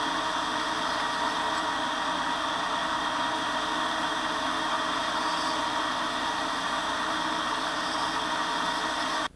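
Belt grinder running steadily with its sanding belt grinding a damascus steel blade to shape; the sound cuts off suddenly near the end.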